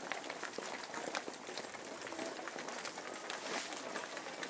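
Footsteps of many people walking on a concrete road: a steady scatter of light taps and scuffs.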